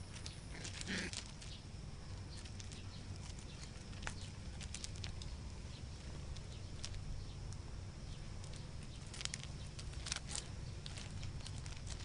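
Puppies' paws stepping and scrabbling over loose gravel: scattered small clicks and crunches of stones, a little louder about a second in and again near the end, over a steady low rumble.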